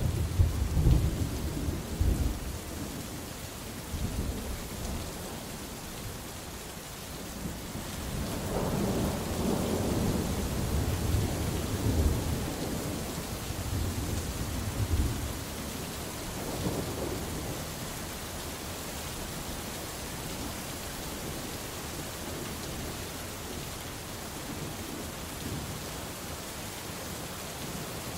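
Thunderstorm: steady heavy rain with rolling thunder, a loud rumble at the start and a longer one from about eight to sixteen seconds in, then rain alone.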